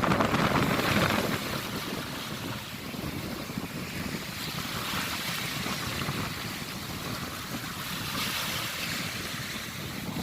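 Sea waves washing, with wind buffeting the microphone. Louder for about the first second, then steady.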